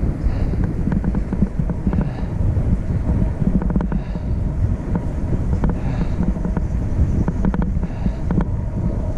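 A vehicle on the move: steady low road and engine rumble with wind buffeting the microphone, and scattered light rattles and clicks.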